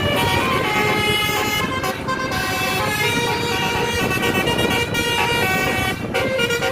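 Tourist bus's 'telolet' horn, a set of air-horn trumpets playing a tune of stepped notes, over low traffic and engine noise.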